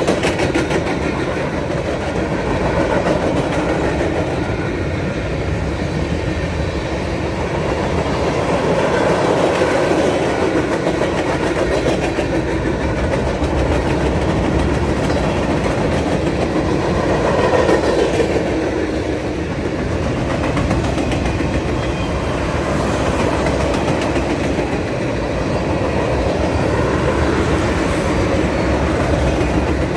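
Freight cars of a passing Norfolk Southern mixed freight train rolling by at steady speed: a continuous rumble of steel wheels on the rails with a running clickety-clack of wheel clicks.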